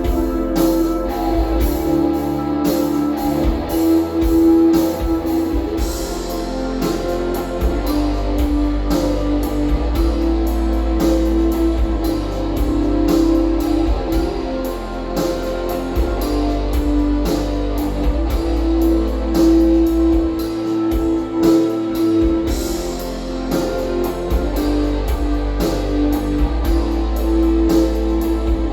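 Music with guitar and drums playing back through an RCF Ayra Pro6 active studio monitor.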